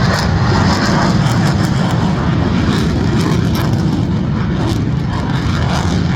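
A jet aircraft flying overhead, its engine noise loud and steady, easing off slightly toward the end.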